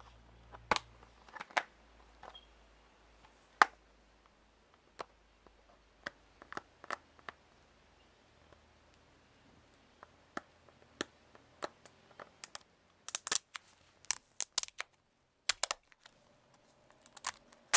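Fingernails picking at and peeling stickers off a plastic Blu-ray case: scattered sharp clicks and scratches, coming thicker in the last few seconds.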